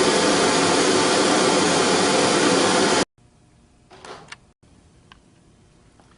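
An all-metal canister vacuum with two fan motors runs with a loud, steady rush, then cuts off suddenly about three seconds in. A short faint rustle and a click follow.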